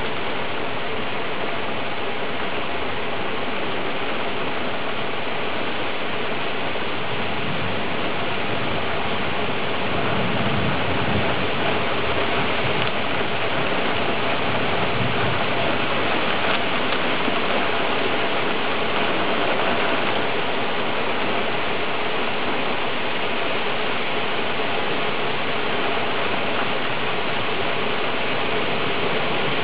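Steady heavy rain falling during a thunderstorm, an even hiss that swells a little in the middle.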